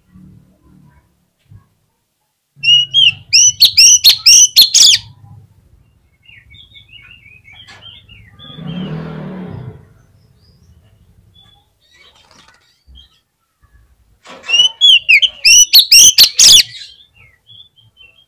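Oriental magpie-robin (kacer) singing in full, excited song: two loud bursts, each of repeated rising whistles mixed with sharp clicking notes, separated by about ten seconds of softer, scattered notes. A brief muffled rustle sounds near the middle.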